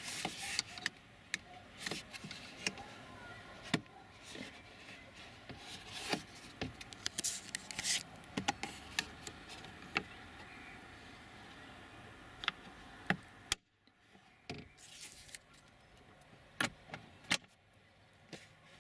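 Irregular sharp clicks and knocks of hands handling parts in a car's interior, with a brief cut to near silence about 13.5 seconds in.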